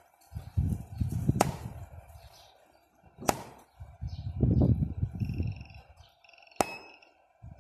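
Jinbei MSN 800 studio flash test-fired on the bench: three sharp clicks about two seconds apart. A short high electronic beep sounds just before the last click, and low rumbling handling noise fills the gaps.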